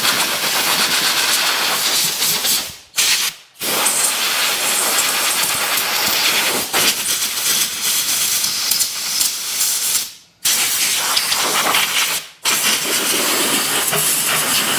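Compressed-air blow gun hissing in long loud blasts, blowing leftover sandblasting grit off a bare engine block, with four brief pauses where the trigger is let go.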